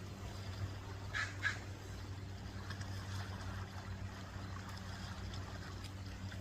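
Two short, harsh bird calls in quick succession about a second in, over a steady low engine-like hum.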